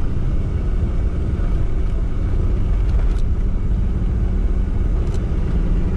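Toyota Land Cruiser driving over a rough dirt track, heard from inside the cabin: a steady low engine and road rumble, with a couple of faint clicks.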